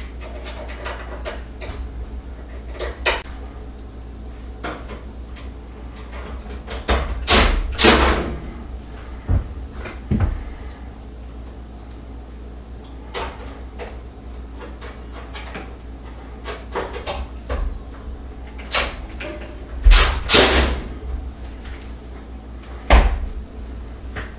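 Sheet-metal rear panel of an electric range being handled and fitted back into place: scattered clicks, knocks and metal rattles, with louder scraping knocks about eight seconds in and again about twenty seconds in.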